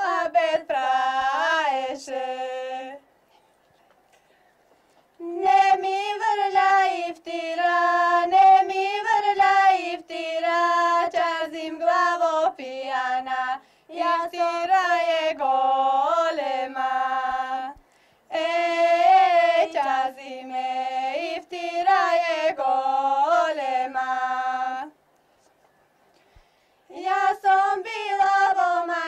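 A woman's high voice singing a folk song unaccompanied, in long melodic phrases broken by short silent pauses.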